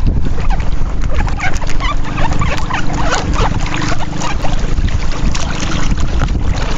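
Wind buffeting the microphone over water lapping and splashing against a small wooden boat's hull.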